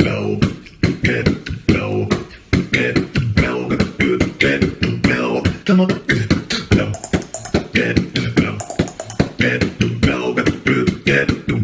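A person beatboxing: a fast, unbroken stream of mouth-made kick, snare and click sounds, with pitched, wobbling vocal tones woven between the hits.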